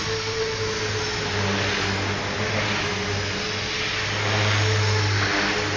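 Align T-Rex 450 electric RC helicopter running: a steady hum of its motor and spinning rotor, a little louder between about four and five seconds in.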